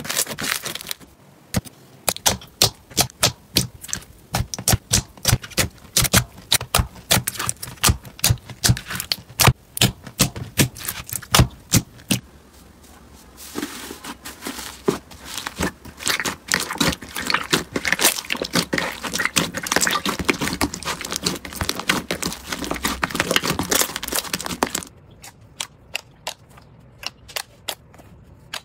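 Crunchy slime being squeezed and pressed by hand, giving rapid crackling and popping clicks. The clicks come spaced at first, thicken into a dense crackle from about halfway, and thin to a few sharp snaps near the end.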